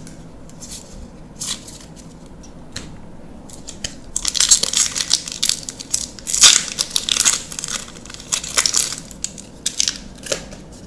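Foil wrapper of a Magic: The Gathering draft booster pack being torn open and crinkled, a loud crackling rustle lasting several seconds from about four seconds in. Before it, light clicks of playing cards being handled.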